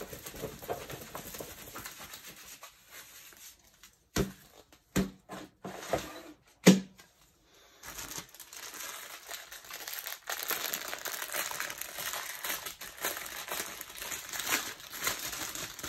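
Plastic packaging of diamond-painting drill bags crinkling and rustling as it is handled, with a few sharp knocks between about four and seven seconds in, the loudest near seven seconds, then a short pause before steady crinkling resumes.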